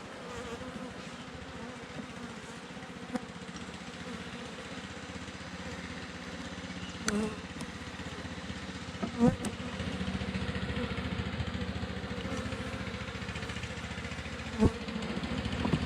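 Honeybees buzzing steadily around an opened nuc box, growing louder through the stretch, with a few sharp knocks as wooden frames are worked loose.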